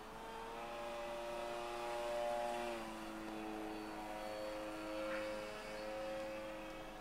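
Multiplex Mentor RC model plane's electric motor and propeller whining as it flies overhead, the pitch dropping a step about three seconds in and then holding steady.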